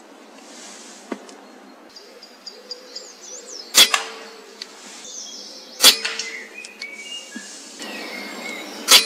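Three sharp air rifle shots: two about two seconds apart, the third near the end, each a short crack that dies away quickly. Faint birds chirp in between.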